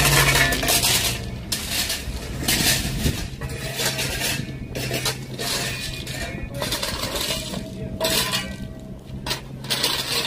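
Rounded river rock clattering and clinking as steel shovels scoop and spread it, in irregular bursts of stone striking stone and scraping blades.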